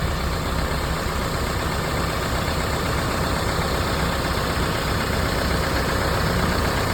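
Isuzu NPR diesel truck engine idling steadily, running on its newly replaced accessory and fan belts.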